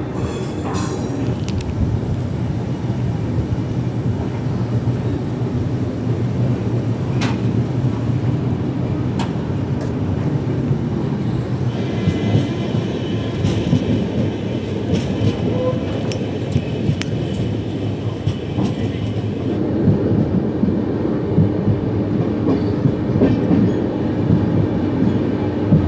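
Indian Railways express passenger train running at speed: a steady rumble of the coaches with scattered clicks of the wheels over the rails. A higher-pitched tone rides over the rumble for several seconds in the middle.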